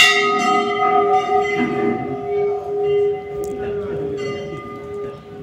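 A temple bell is struck once, a sharp clang that rings on in several steady tones and slowly fades.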